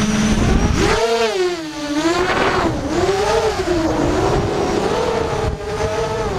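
Mini quadcopter's brushless motors and propellers whining. The pitch rises and falls repeatedly as the throttle changes.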